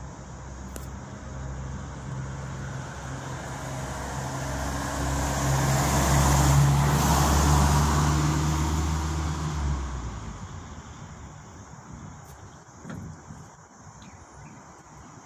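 Green-roofed public light bus (minibus) engine running as it comes up and drives past. It is loudest about six to eight seconds in, then the engine drops away at about ten seconds and the tyre and road noise fades.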